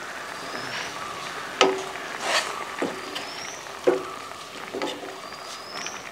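A long spoon stirring simmering sambar in a stainless steel pot, knocking against the pot about four times so that the steel rings briefly, with a scrape in between.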